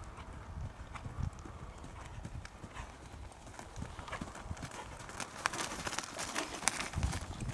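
Hoofbeats of a ridden horse on an arena surface, with dull thuds and sharper clicks. They get louder about five seconds in as the horse passes close by.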